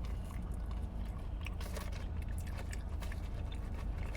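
Close-miked chewing and biting: a person eating chicken wings, with wet mouth clicks and smacks scattered through, over a steady low hum.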